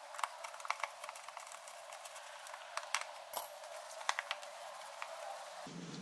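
Scattered light clicks and taps from a Phillips screwdriver and gloved hands working the plastic air box lid as its screw is driven in.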